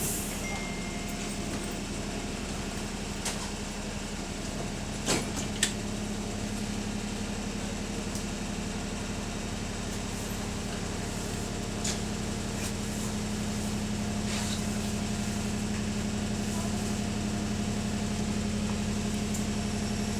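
Diesel engine of London bus T212 running, heard from inside the passenger saloon as a steady hum that grows a little louder over the second half. A few short sharp knocks or rattles stand out, two of them about five seconds in.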